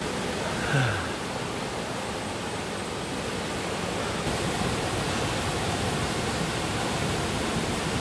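Mountain stream cascading down rocky steps into a pool: a steady rush of falling water, growing a little louder about halfway through.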